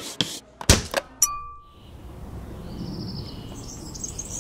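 A few sharp knocks, then a single bright ding that rings out and fades within about half a second. After that, a quiet outdoor background with high chirps like birds.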